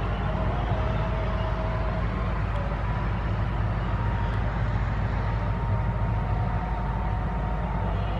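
Pakistan Railways ZCUP-30 diesel-electric locomotive passing at slow speed, its engine giving a steady low rumble that holds at an even level.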